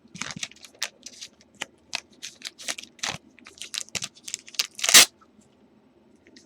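Baseball trading cards being handled and flipped through, a quick run of short rustles and card snaps, with one louder, longer rustle about five seconds in, after which the handling stops.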